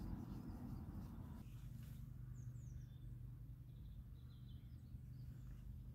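Faint bird chirps, a few short calls, over a quiet background hum. The rumble of a passing car fades out in the first second and a half.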